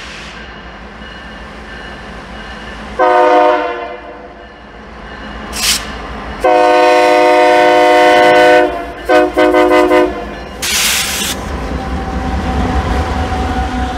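Diesel locomotive's multi-chime air horn sounding a short blast, a long blast, then two quick short blasts. Near the end the locomotive's low engine rumble swells as it comes close, with a couple of brief bursts of hiss.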